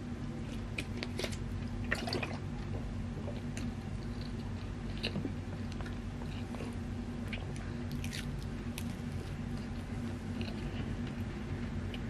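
Close-miked chewing of Napoleon cake, soft cream and flaky puff-pastry crumbs, with scattered small crackles and clicks at irregular times over a steady low hum.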